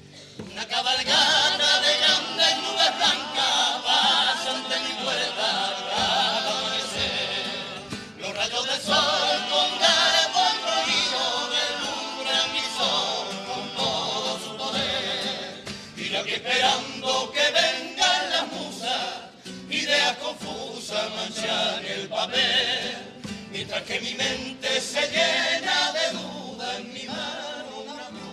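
Male carnival chorus singing a song in several-part harmony, accompanied by strummed acoustic guitars. The singing comes in just after the start and runs in long phrases with short breaks between them.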